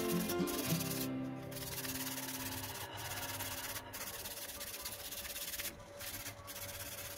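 Small wire brush scrubbing a fan blade clean in quick back-and-forth strokes, with brief pauses between bursts. Background music fades out after about two seconds.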